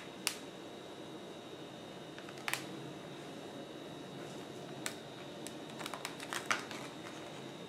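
Clear plastic blister pack being handled, with a few scattered light clicks and crinkles as the clamshell is tapped and tilted, over a steady faint hiss.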